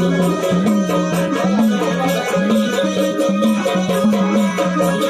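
Marathi folk devotional music for Khandoba played by a jagran party, here an instrumental passage. A steady, wavering melodic line runs over a drum beat and jingling rattle-like percussion.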